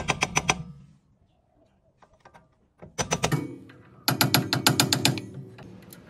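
Hammer driving a screwdriver against the rear wheel hub of a Chevrolet Aveo: quick runs of sharp metallic strikes, about eight a second. One run comes at the start, a brief one about three seconds in, and a longer one of about a second from four seconds in.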